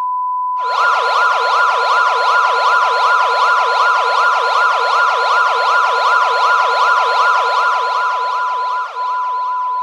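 Mock Emergency Alert System alarm: a steady high beep-like tone with a fast wailing siren over it, sweeping up and down about three times a second. The wail comes in about half a second in and drops out just before the end, leaving the steady tone alone.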